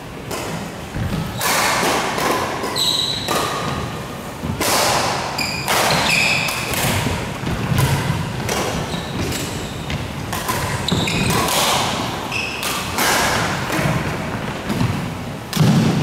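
Badminton doubles rally in an echoing hall: rackets striking the shuttlecock again and again at an irregular pace, with feet thudding on the court floor and brief high squeaks of shoes.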